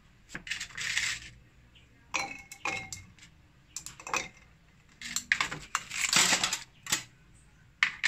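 Ice cubes clinking against a glass and rattling in a plastic ice tray as ice is added to a glass of iced coffee, in several short bursts of clinks.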